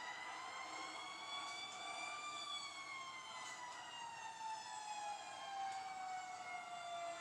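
Fire truck siren wailing slowly: its pitch climbs for about two seconds, then slides steadily down through the rest.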